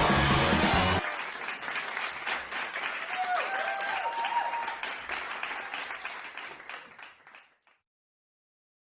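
Crowd of children cheering and clapping, loud for about the first second, then dropping suddenly to a softer cheer with a few high shouts and fading out a few seconds later.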